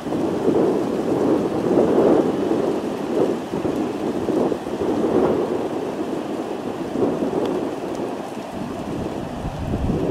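Low rumbling jet engine noise from an airliner on final approach, swelling and fading irregularly.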